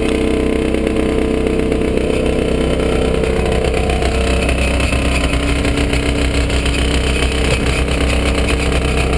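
Falcon XP ultralight aircraft's engine running steadily on the ground, a loud, even drone with a strong low rumble and its tone shifting slightly about halfway through.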